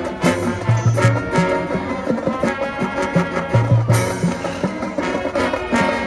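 High school marching band playing, with full brass chords and drumline percussion hitting in a steady beat.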